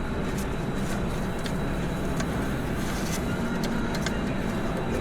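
A steady rushing noise, with a few faint metallic ticks from clutch pressure-plate bolts being threaded in by hand.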